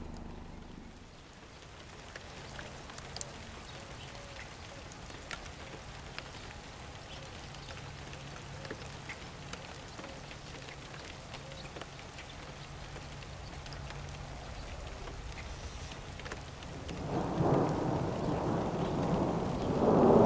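Steady rain falling, with scattered drops ticking. Near the end thunder rumbles in twice, much louder than the rain.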